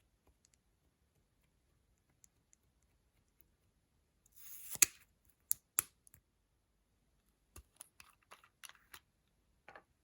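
Sharp plastic clicks and snaps from small makeup containers being handled and opened. A brief crackly rustle ends in the loudest snap just under five seconds in, then come two more clicks and a looser run of lighter clicks near the end.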